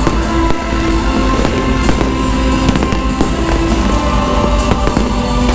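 Aerial fireworks going off, with many sharp cracks and pops in quick succession, over loud music with long held notes.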